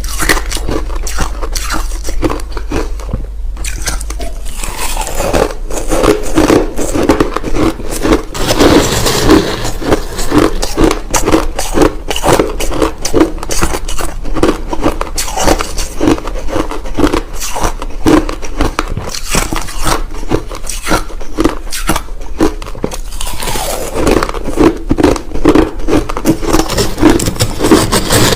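Crushed ice being chewed close to the microphone: a dense run of crunching and crackling bites.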